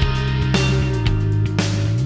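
Rock background music with guitar and a steady beat.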